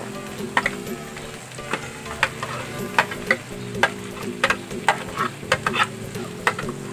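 A metal spoon scrapes and taps diced hotdog off a plastic tray into a wok where minced milkfish filling is frying. Sharp irregular clicks come about twice a second over a faint sizzle.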